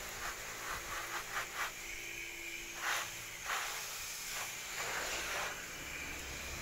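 Water spraying from a garden hose nozzle onto leafy plants: a steady hiss that swells and dips unevenly as the spray sweeps across the leaves.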